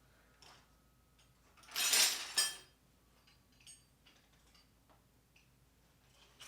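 Metal hand tools clinking and clattering as they are handled, with one loud clatter about two seconds in and a few light clicks around it.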